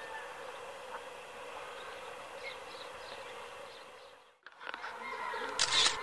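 Outdoor bird-park ambience: a steady insect-like buzzing with small bird chirps, fading out about four seconds in. A new stretch of bird calls then begins, with a brief loud rustling burst near the end.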